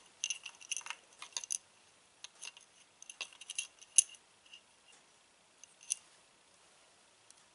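Small metal and plastic parts of a truck starter solenoid clicking and clinking lightly and irregularly as the terminals and contacts are handled and the cap is fitted on during reassembly. The clicks are thickest in the first few seconds, the sharpest one comes about four seconds in, and a couple more follow near six seconds.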